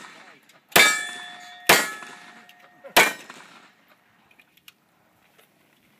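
Three pistol shots about a second apart, each followed by the ringing clang of a hit steel target that hangs on for a second or two. The last shot comes about three seconds in.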